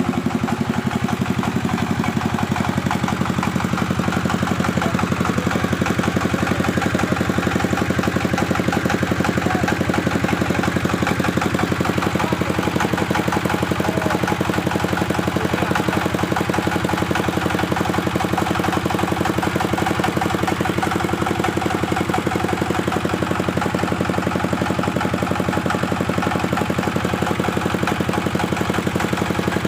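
Bandsaw machine running steadily on a test run, a constant mechanical drone with a fast, even pulse.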